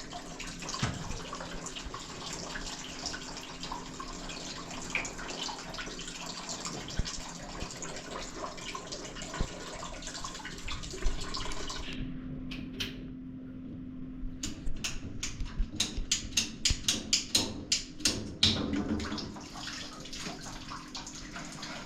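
Water running steadily, as from a tap or pipe, for the first half. Then it cuts off abruptly to a low steady hum and a rapid run of sharp clicks or taps, a few a second, before the running-water noise returns near the end.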